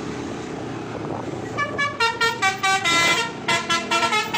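About a second and a half of street and engine noise, then a bus's basuri musical horn plays a quick melody of short, stuttering notes that jump in pitch.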